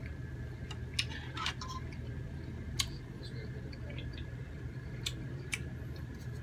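Knife and fork clinking against a plate while cutting grilled squid: five or so sharp clicks spaced unevenly over several seconds, over a steady low hum.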